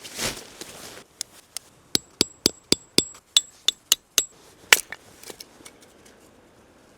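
A quick run of about a dozen hammer blows on metal, roughly four a second, with a thin metallic ring, then one harder blow. A brief rush of noise comes right at the start.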